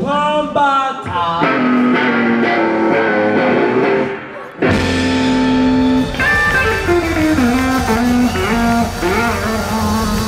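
Rockabilly band playing live: an electric guitar solo with bent notes, over upright bass and drums. The guitar starts nearly alone, the band drops away briefly a little after four seconds in, then comes back in full.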